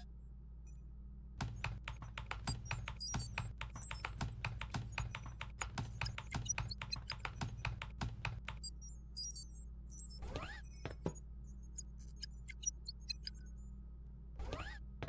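Rapid typing on a computer keyboard for several seconds over a steady low electronic hum, followed by two short rising sounds a few seconds apart.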